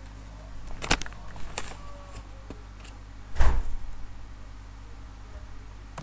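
A few knocks and clatters over a steady low hum: a sharp clack about a second in, a lighter one shortly after, and the loudest, a heavy thump, a little past the middle.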